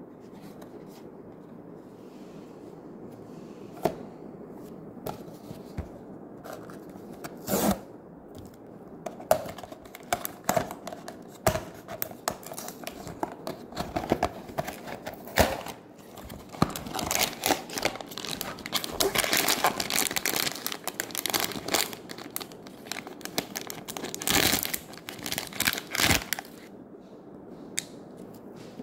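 Cardboard blind box being handled and opened, with scattered taps and scrapes, then a sealed foil blind-box bag crinkling and tearing open in a dense run of crackling that stops a couple of seconds before the end.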